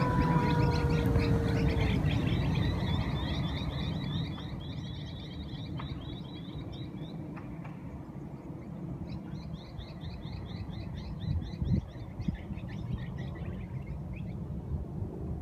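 The electric motor and propeller of an RC Corsair warbird whine overhead, the pitch dropping slightly as the sound fades away in the first two seconds. After that, small birds chirp in quick repeated trills, in two spells.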